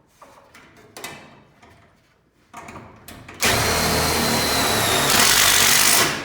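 A power driver sinks a self-tapping screw into the steel garage door panel and strut: a loud, harsh drilling run of about two and a half seconds with a high whine, starting about three and a half seconds in and changing tone about a second before it stops. Before it, light clicks and knocks of handling.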